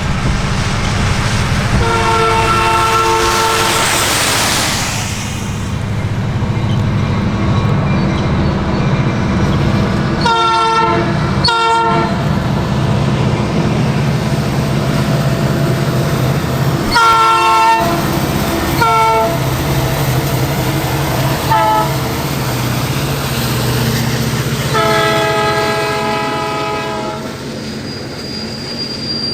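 Multi-chime air horn of an SD70-series diesel locomotive sounding a string of blasts as the train passes: a long one about two seconds in, short blasts around ten to twelve seconds, more between about seventeen and twenty-two seconds, and a final long blast near the end. The low, steady rumble of the passing train runs underneath.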